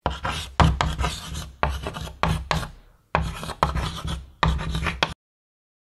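Chalk scratching on a blackboard, writing out letters in a run of short quick strokes, with a brief pause about halfway through; it stops suddenly about five seconds in.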